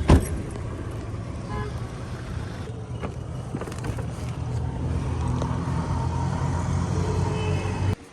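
Road vehicle running, a steady low rumble that grows louder about halfway through, with a sharp knock at the very start; it cuts off abruptly just before the end.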